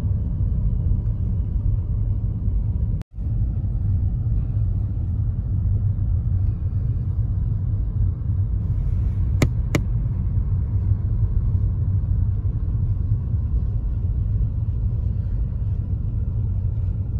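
Steady low rumble of a car driving, heard from inside the cabin: engine and road noise. The sound cuts out for a moment about three seconds in, and two sharp clicks come close together a little past halfway.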